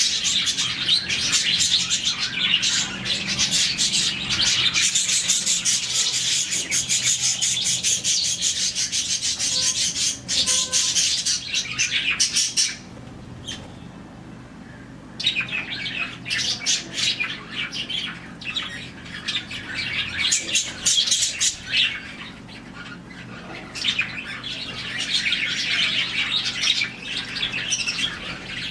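A flock of about forty budgerigars chirping and chattering all at once in dense, rapid high calls. About halfway through, the flock falls silent for around two seconds, then starts chirping again.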